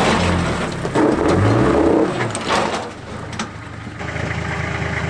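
Toyota Land Cruiser engine revving in rising and falling surges as the 4x4 tries to climb a rock step with its rear bar hung up and little load on the rear wheels, then settling to a steady idle about four seconds in.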